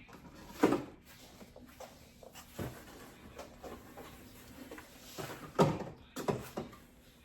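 A few separate knocks and clunks, with lighter clicks between them, as food containers are set onto refrigerator shelves and fridge drawers are handled. The two loudest come about two-thirds of a second in and about five and a half seconds in.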